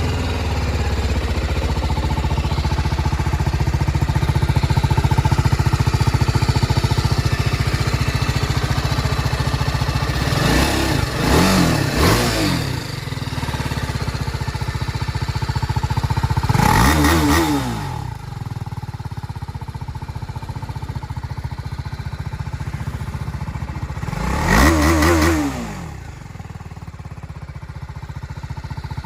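Single-cylinder sport motorcycle's stock exhaust idling steadily, with three short throttle blips, each rising and falling back to idle.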